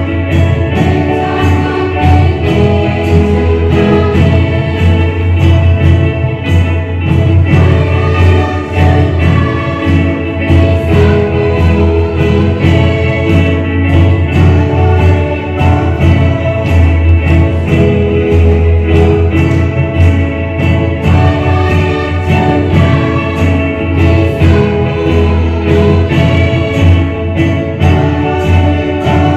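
Youth choir singing a Garo gospel song together, with guitar accompaniment and a steady beat.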